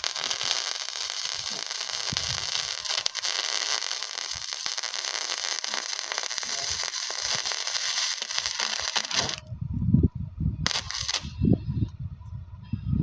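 Flux-core arc welding: the arc crackles and sizzles steadily while a bead is laid, then cuts off about nine seconds in. A second short burst of arc follows about a second later, among low thumps.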